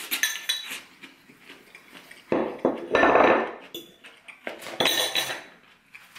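Metal fork clinking and scraping against a plate while eating salad, in short clicks near the start and again about five seconds in. A louder stretch of noise runs from about two to three and a half seconds in.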